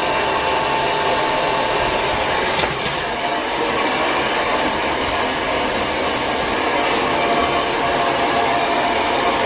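Lange Soleil hair dryer running steadily: a constant rush of blown air with a faint whine that drops slightly in pitch about three seconds in.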